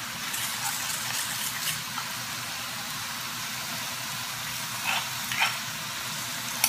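Beef and vegetables sizzling in a hot stainless steel iCook pan as a soy-based seasoning sauce is poured over them, with crackles in the first two seconds. Two short light clinks about five seconds in.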